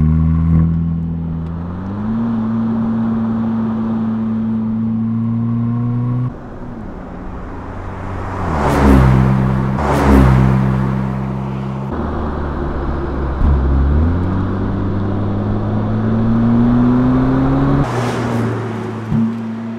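Mercedes-AMG SL 43's 2.0-litre turbocharged inline four-cylinder engine pulling under acceleration. Its note climbs in pitch and drops back at gear changes, with the longest climb in the last few seconds. Two loud whooshes near the middle as the car passes close by.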